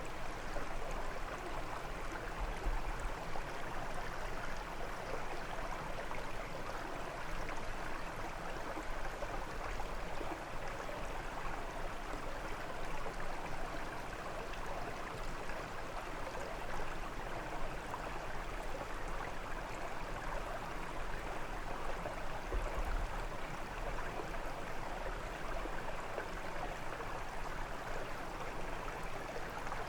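Stream water running and splashing over stones, a steady even rush with bursts of low rumble now and then.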